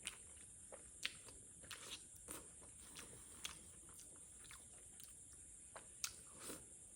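A person chewing chicken curry and rice close to the microphone: faint, irregular wet mouth clicks and smacks.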